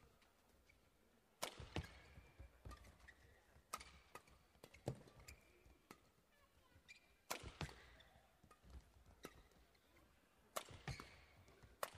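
Badminton rackets striking the shuttlecock in a fast doubles rally: sharp cracks about every second, a few in quick pairs. Short squeaks of shoes on the court come between the hits.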